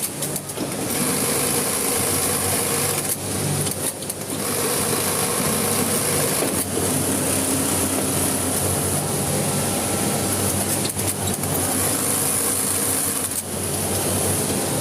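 Electric sewing machine running steadily, with several brief pauses as the seam is stitched.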